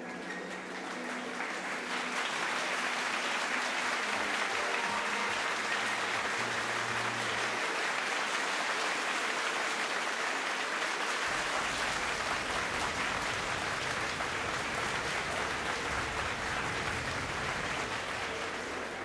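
A crowd applauding, swelling up in the first couple of seconds and easing off at the end, with a low rumble joining in about halfway through.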